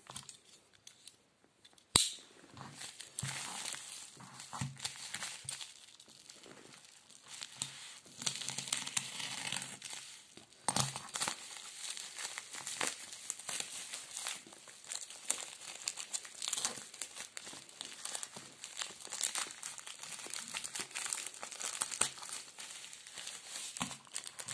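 A plastic postal mailer being torn and pulled open by hand, its plastic crinkling and rustling throughout, with a louder stretch of tearing near the middle. A single sharp click about two seconds in is the loudest sound.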